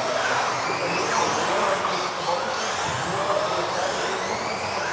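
Several electric 1:10 RC off-road race cars running together, their motors giving overlapping high whines that rise and fall in pitch as they accelerate and brake, echoing in the hall.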